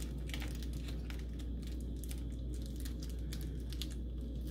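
Small clear plastic bag of screws crinkling as it is handled and opened, with scattered light clicks, over a steady low hum.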